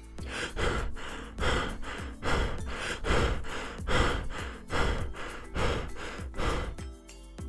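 Toilet paper rustling and tearing in a series of noisy bursts, about one every 0.8 seconds, as a cat bites and rakes at the roll and the paper shreds around it.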